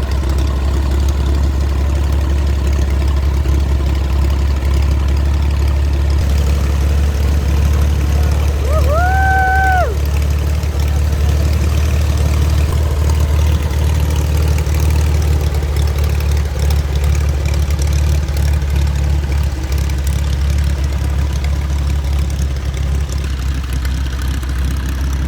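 An engine running steadily at a low, even drone. About nine seconds in, a short clear tone rises, holds for about a second and falls away.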